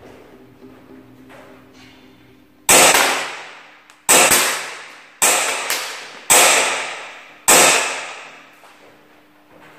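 Five single pistol shots, loud and sharp, about one a second, each with an echo that dies away over most of a second.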